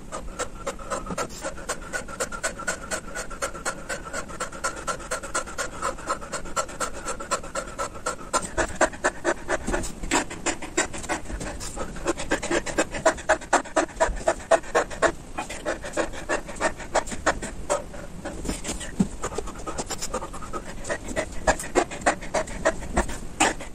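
A man breathing hard and fast in a quick, steady rhythm while doing push-ups, winded well into a long bodyweight workout challenge.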